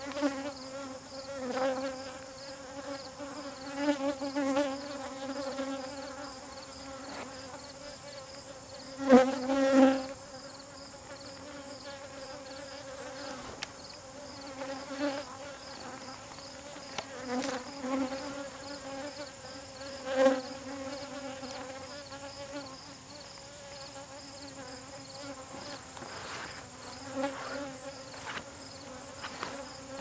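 Many honeybees buzzing around an opened top-bar hive: a steady drone that swells louder as bees fly close past, most strongly about nine to ten seconds in and again around twenty seconds.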